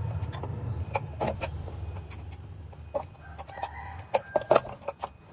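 Sharp clacks and knocks of a hand-lever cutting press worked on a rod, several in quick succession near the end, over a low motor hum that fades after about two seconds. A few short squeaky calls sound among the clacks.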